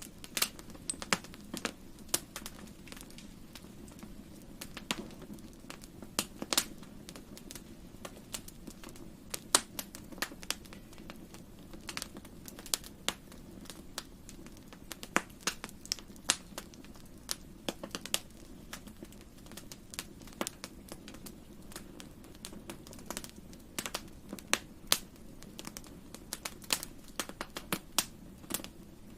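Wood fire crackling in a fireplace: irregular sharp pops and snaps, some louder than others, over a soft steady low rumble of the flames.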